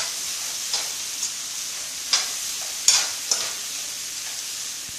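Metal spatula stirring and scraping foxtail millet vermicelli around a metal kadai over a steady frying sizzle, with several sharper scrapes against the pan, the loudest about two to three seconds in.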